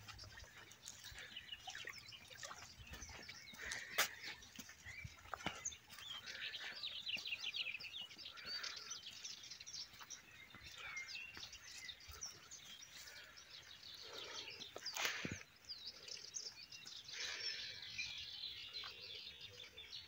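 Small birds chirping and twittering, many short overlapping calls. Twice, about four seconds in and again near fifteen seconds, a sharp click cuts across them.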